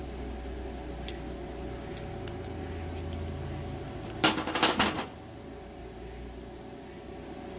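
Steady machine hum with a few faint ticks, then a short burst of welding-arc crackle lasting under a second, about four seconds in.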